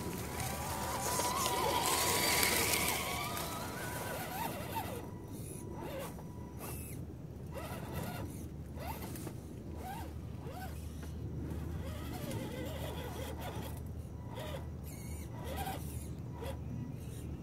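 Radio-controlled scale crawler trucks' electric motors and geared drivetrains whining in short spurts that rise and fall in pitch with the throttle as the trucks climb over dry leaves.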